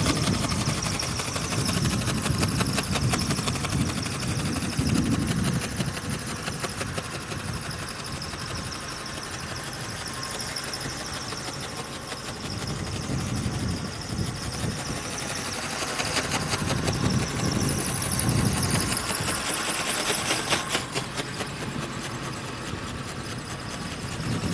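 Radio-controlled ornithopter's motor and wing-flapping drive whining high and wavering in pitch as it flies overhead, over gusty wind rumbling on the microphone. The whine drops away about 20 seconds in.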